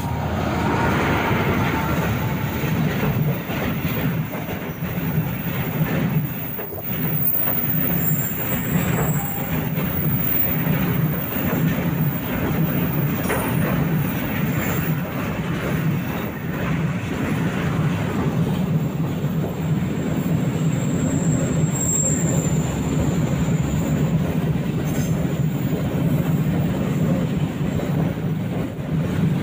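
Diesel-hauled freight train passing close by: the locomotives go past at the start, then a long string of loaded container wagons rolls by with a steady rumble of wheels on rail. A thin high wheel squeal comes in briefly twice, once about eight seconds in and again past twenty seconds.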